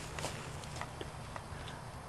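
A few faint footsteps and light crackles in dry brush, over a low steady rumble on the microphone.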